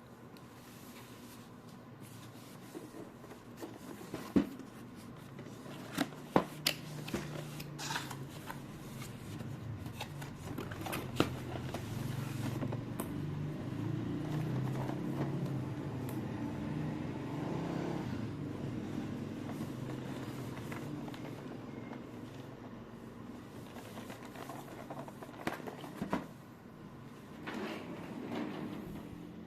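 Handling of a boxed action figure's packaging: scattered sharp clicks and taps, with a low hum that swells through the middle.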